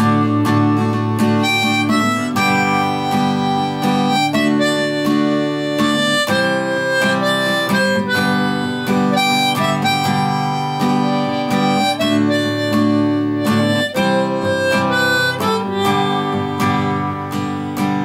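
Harmonica playing a melody of held notes over strummed acoustic guitar: the instrumental break between verses of a folk song.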